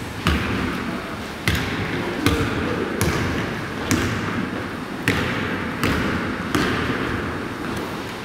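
A basketball bouncing on a hardwood gym floor, about nine sharp bounces spaced unevenly around a second apart, each echoing in the large hall, over a steady background hum of the gym.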